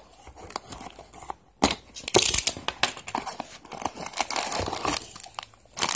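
A small cardboard toy-car box being opened and the crinkly plastic bag around the die-cast car rustling as it is pulled out. The rustling starts sharply about a second and a half in and goes on in uneven crackles.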